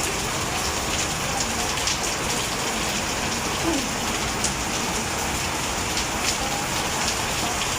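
Heavy tropical downpour: a steady, dense hiss of rain, with scattered sharper drops ticking close by.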